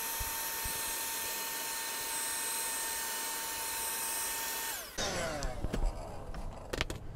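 A Black+Decker 16V handheld cordless vacuum runs with a steady high whine while sucking dust out of a pleated HV battery fan filter. A little under five seconds in it switches off and its whine drops away, followed by rustling and a few clicks as it is handled.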